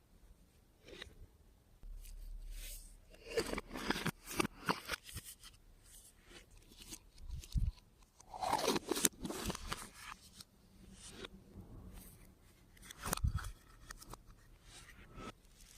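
Hands working clear slime with makeup mixed into it: irregular crunches, sticky clicks and short scrapes in clusters, with quieter stretches between.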